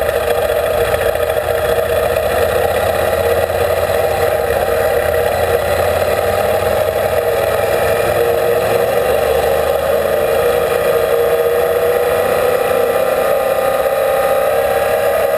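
Motorcycle engine droning at a steady cruising speed on a gravel road, mixed with wind rush and tyre noise. The pitch creeps up a little in the last few seconds.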